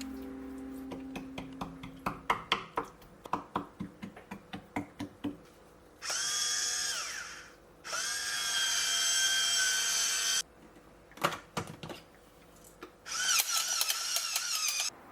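A run of sharp taps, about three a second, then a small electric motor whining in three bursts. The first burst drops in pitch as it stops, the second is steady, and the last wavers.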